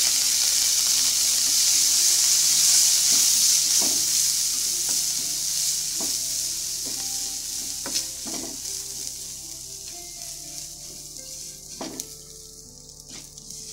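Grated jackfruit seeds frying in hot oil, sizzling and crackling hard where salt water has just been sprinkled into the pan, the hiss dying down steadily as the water cooks off. A wooden spatula stirs through it with a few sharp scrapes and clicks.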